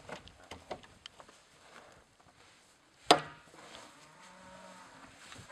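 Handling of a plastic drum: a few light knocks and clicks, then one sharp knock about three seconds in with a brief ring.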